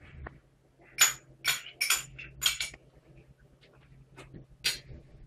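Short clinks and scrapes, about six of them spread through the few seconds: canned tuna being tipped out of its tin and scraped into a ceramic bowl.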